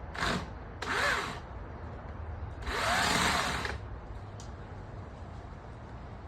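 Small electric chainsaw triggered in three short bursts, the motor whining up and winding down each time. The last burst is the longest, about a second.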